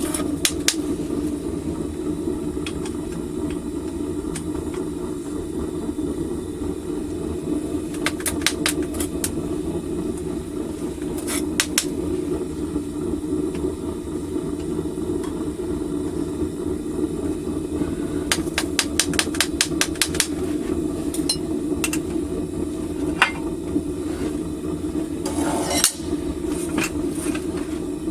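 Home-made propane furnace burner running with a steady low roar, while metal clinks and rattles come in several short rapid clusters.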